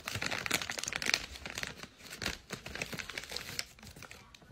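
Plastic bag of mini lollipops crinkling in irregular rustles as it is handled and a toddler reaches in for a lollipop.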